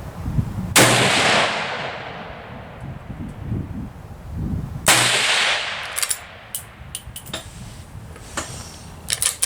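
Two shots from a Winchester Model 94 .22 Magnum lever-action rifle, about four seconds apart, each ringing out and fading over a couple of seconds. A series of sharp metallic clicks follows the second shot, the rifle's lever action being worked.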